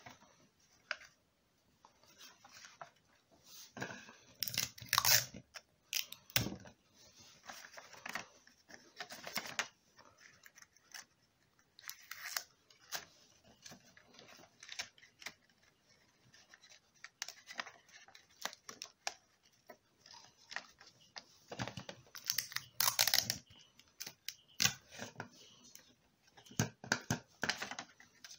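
Sellotape being pulled off and torn from a dispenser and pressed onto a paper model, with the paper rustling and crinkling in irregular bursts, a few of them louder.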